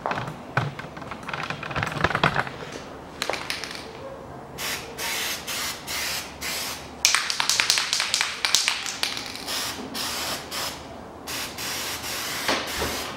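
Aerosol gasket remover sprayed onto old sealant on an aluminium engine block, in a series of short hissing blasts from about four and a half seconds in, a few of them longer. Before the spraying there are a few light clicks and knocks.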